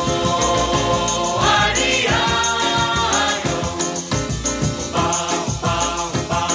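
Background music: a song with a steady beat and singing voices.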